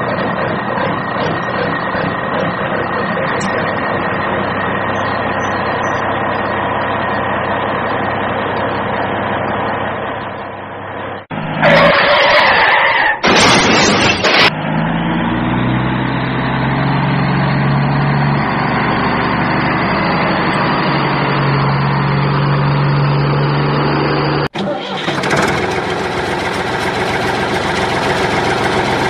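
Vehicle engine sound effect running steadily, laid over toy vehicles. About halfway through come two short, loud bursts of water splashing, then a lower engine hum with a deep steady drone, and near the end the engine sound turns brighter.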